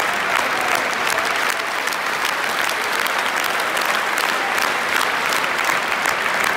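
Large football stadium crowd applauding, many hands clapping steadily.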